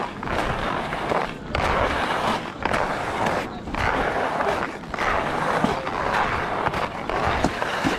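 Skis scraping and sliding over packed, tracked-up snow, a steady hiss that dips briefly about once a second.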